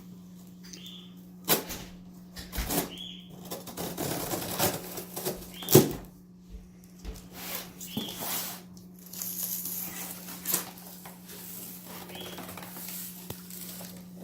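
Irregular knocks, clicks and rustling, as of objects being handled, over a steady low hum.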